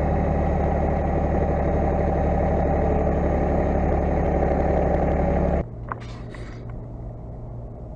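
Massey Ferguson 1720 compact tractor's diesel engine running steadily, heard close up. About five and a half seconds in it cuts off suddenly to the much quieter inside of a pickup cab: a low steady hum with a few light clicks.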